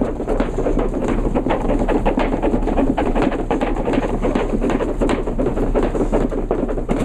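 Jump ropes slapping the gym floor in a fast, uneven clatter, several ropes at once, during a timed skipping set.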